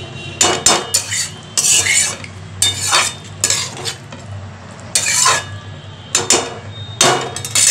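A spoon stirring a thick potato curry in a metal pot, scraping against the pot in repeated short strokes, one or two a second.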